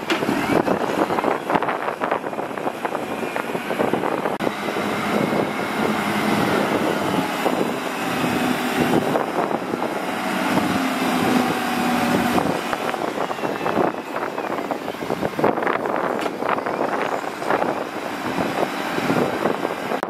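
DISD SD300N wheel loader's diesel engine working under load as the bucket pushes sand, with a steady machine drone and some rising and falling engine pitch through the middle.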